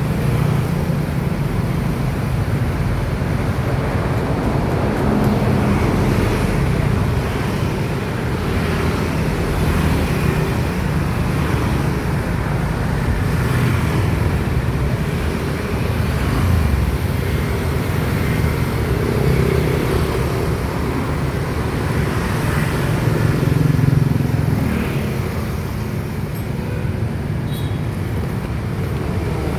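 Motor vehicle running steadily on the road, with the rumble of surrounding traffic.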